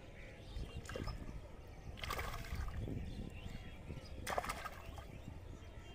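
Hands sloshing and splashing through shallow, grassy floodwater while groping for fish by hand. There are short splashes about two seconds in and again a little past four seconds, over a low steady rumble.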